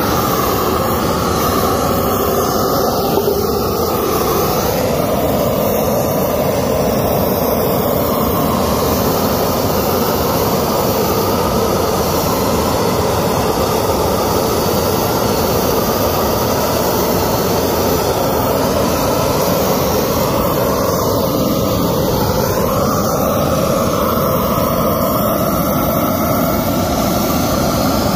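Big torch flame burning with a loud, steady, unbroken roar, charring wooden posts.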